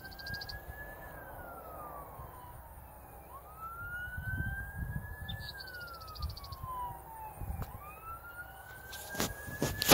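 A siren wailing, its pitch rising slowly and then falling, repeating about every four seconds over a low rumble. Sharp knocks near the end are the loudest sounds.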